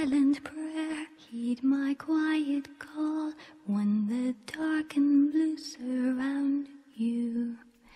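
Background music: a woman singing a slow, gentle melody in held notes.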